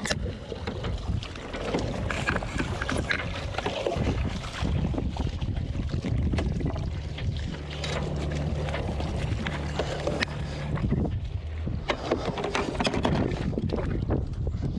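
Wind buffeting the microphone over the low hum of a sailboat's engine at low throttle, clearest for a few seconds in the middle. Scattered knocks and splashes come as a boat hook catches a mooring pennant and the wet rope is hauled aboard.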